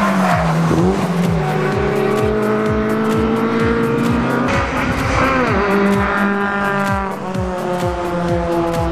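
Race car engine at high revs on a circuit, its pitch dipping briefly twice, about a second in and about five seconds in, as if lifting off or changing gear, mixed with electronic dance music that has a steady kick-drum beat.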